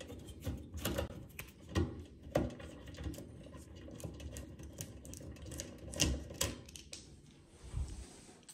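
Plastic twist-on wire nuts being unscrewed by hand from the fan's wires: a run of small, irregular clicks and scrapes, with a few sharper ticks.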